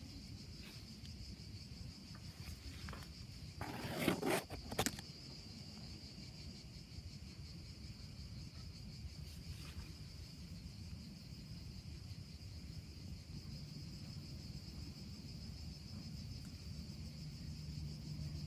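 Insects trilling steadily in a high, even drone over a low rumble. About four seconds in, a brief loud rustle with a couple of sharp knocks.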